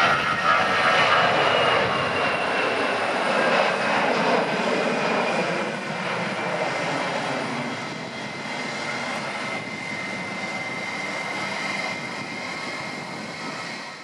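Airbus A321 airliner's twin turbofan engines at takeoff thrust during lift-off and climb-out: a loud rushing noise with a high whine that slides slowly lower in pitch, fading gradually as the aircraft climbs away.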